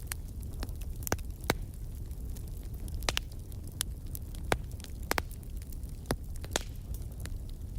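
Wood fire crackling in a fireplace: sharp pops and snaps at irregular intervals over a low, steady rumble of the flames.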